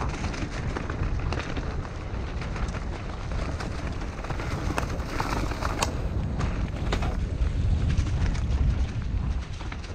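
Mountain bike riding fast down a dry dirt singletrack: wind buffets the action camera's microphone in a steady low rumble, and the tyres run over dirt, rocks and dry leaves. The bike rattles and clicks sharply over the bumps.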